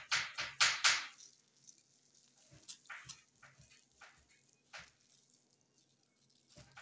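Plastic bag of yogurt being shaken and worked by hand, with quick rhythmic crinkling, about three strokes a second, that stops about a second in. After that, only a few faint, scattered crinkles and squelches as the yogurt is squeezed out of the bag into a bowl.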